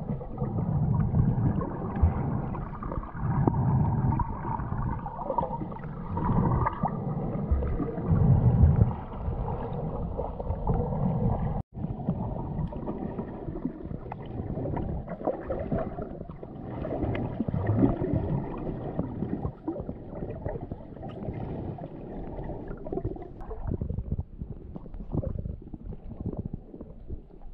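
Muffled underwater noise picked up by a camera submerged in the sea: dull water rushing and sloshing with low rumbling surges every few seconds, cutting out for an instant about twelve seconds in.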